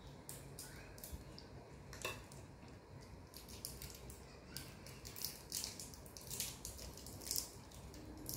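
Crinkly toffee wrapper being unwrapped by hand, giving faint, irregular crackles that come thicker and louder in the second half.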